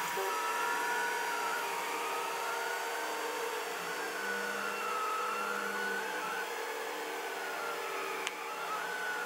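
Delta 3D printer running a print: its stepper motors whine, the pitch gliding slowly up and down as the print head moves, over a steady mechanical hum.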